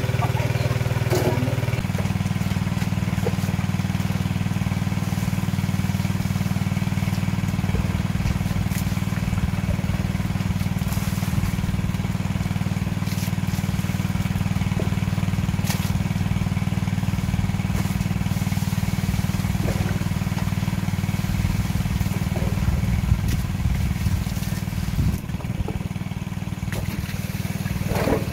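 A small engine running steadily, a low drone that changes note about two seconds in, with light clatter now and then.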